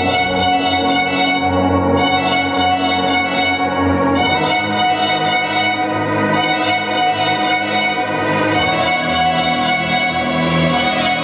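Recorded music with a string-orchestra sound: held string chords that change about every two seconds.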